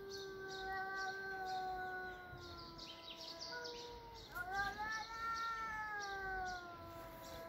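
Domestic cats yowling at each other in a standoff: long, drawn-out wavering calls, with a new call rising sharply about four seconds in.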